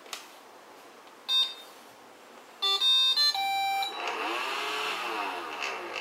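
iRobot Roomba Red 4100: a click as the Clean button is pressed, a short beep about a second later, then a quick tune of several beeps at different pitches. After the tune the vacuum fan whirs up and winds back down within about two seconds, the robot halting as soon as the drive wheels should turn, a fault the owner puts down to a bad battery or a damaged charging circuit.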